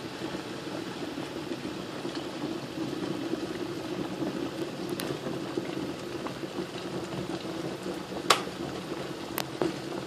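Silver Crest glass electric kettle at a rolling boil, a steady bubbling rumble. A sharp click about eight seconds in and another about a second later.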